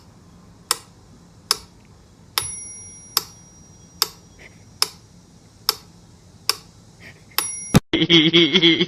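Sharp, evenly spaced ticks, a little over one a second, like a clock ticking; two of them ring briefly like a small bell. Near the end the ticking cuts off suddenly to a loud, pitched sound.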